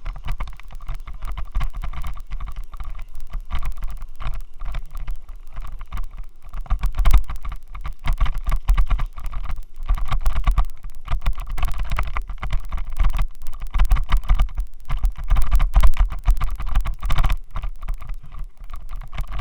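Rattling, buzzing noise and heavy low rumble picked up by a Xiaomi Yi action camera on a vibrating helmet mount, with wind noise. The loose helmet mount is the cause of the racket.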